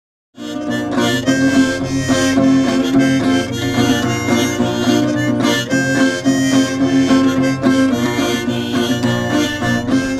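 Harmonica in a neck holder played together with an acoustic guitar, a folk-style tune with held harmonica notes over the guitar, starting about half a second in.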